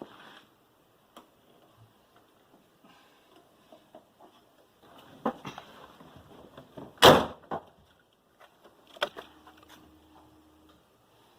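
Scattered clicks and knocks from hands and tools at work on a car, with one loud clunk about seven seconds in and a short steady buzz a couple of seconds later.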